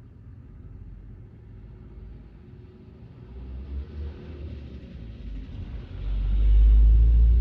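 A deep low rumble that swells and becomes loud about six seconds in.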